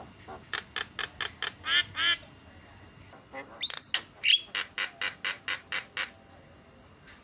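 Javan myna calling: a run of short, harsh notes at about three a second, a brief rising-and-falling whistle, then another run of quick notes at about four a second.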